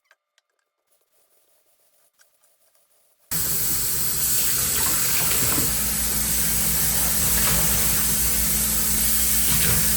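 Water running steadily from a tap, rinsing out the grout-washing sponge. It starts suddenly about three seconds in, after near silence.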